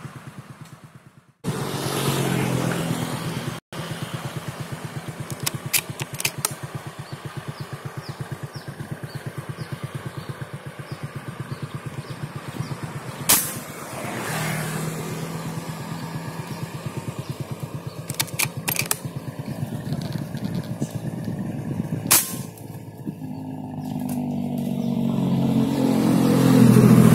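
A small engine running steadily with a fast pulsing beat, growing louder near the end. Two sharp cracks cut through it, about 13 and 22 seconds in.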